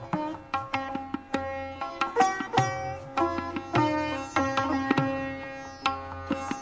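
Background music in Indian classical style: a plucked string instrument picking out quick notes over a steady drone.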